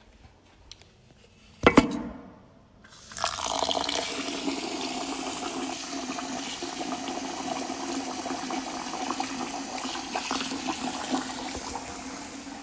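A single loud knock, then from about three seconds in a tap running water steadily into a container of rice as the rice is rinsed.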